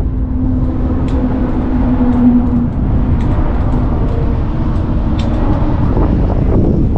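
Car driving on the road: steady low road rumble and wind noise, with a low hum through the first few seconds.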